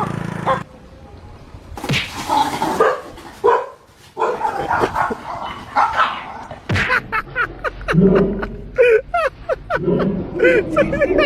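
A dog barking in short, rapid barks that start a little past halfway and come several a second, after a few scattered sounds.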